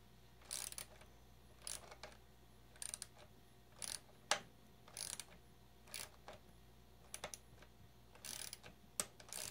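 Small hand wrench tightening a nut on an RC monster truck's aluminum upright: short bursts of faint metallic clicking, about one a second, one with each stroke of the wrench.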